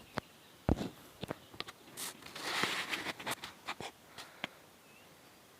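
Campfire crackling with an aerosol can heating in it: a scattered run of sharp cracks and pops, with a brief hissing rush about two to three seconds in, before the can has burst.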